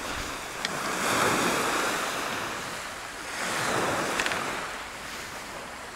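Small sea waves breaking and washing up a pebble beach, twice, each wash swelling and fading over a second or two.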